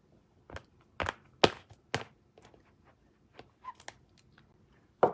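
Sharp clicks and taps of stamping supplies being handled on a table, such as a clear stamp, its block and ink pad cases. There are four louder clicks in the first two seconds, then lighter scattered ticks.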